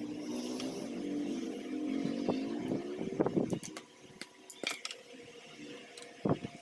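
Light clicks and clinks of small metal parts and tools being handled during radio disassembly, the clearest about four and a half seconds in. A low pitched, wavering sound runs under them for the first half and fades out.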